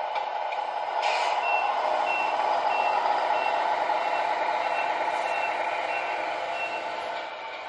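Tamiya MFC-01 sound unit in an RC MAN TGX truck playing a simulated diesel engine running with a steady hum, a short air-brake hiss about a second in, then a string of high reversing beeps, about one and a half a second, while the truck backs up.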